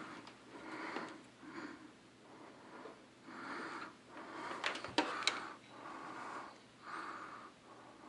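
Faint breathing of a person close to the microphone, a breath about every second, with three small sharp clicks near the middle from multimeter probe leads being handled.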